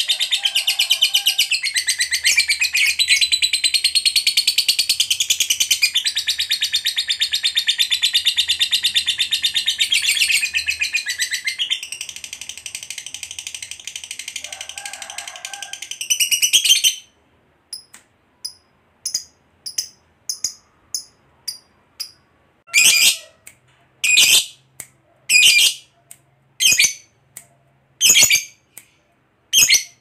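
Lovebird giving a long, unbroken rapid chattering trill, the 'ngekek panjang' song, that stops abruptly about seventeen seconds in. It then switches to single short chirps, faint at first and later louder, about one a second.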